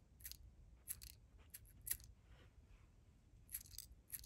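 Miniature toy chocolate chips shaken out of a tiny jar, making faint, light clicks and ticks as they drop onto a small plastic plate. The clicks come scattered, with a small cluster near the end.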